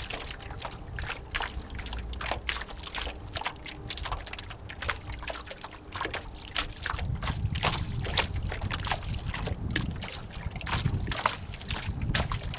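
Lake water slapping and splashing against the hull of an 11 ft Snark sailboat under way, in quick irregular splashes. Wind rumbles on the microphone throughout, heavier from about halfway through.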